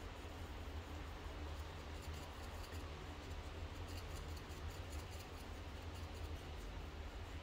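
Light, fine scratching of a hand tool stirring ground coffee in an espresso portafilter basket, in the manner of a needle distribution (WDT) tool, over a steady low hum.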